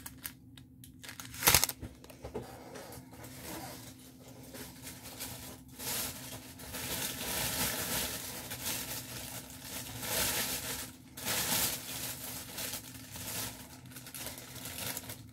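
Clear plastic packaging crinkling and rustling as it is handled and opened, heaviest in a long stretch from about six to thirteen seconds in. There is one sharp snap about a second and a half in.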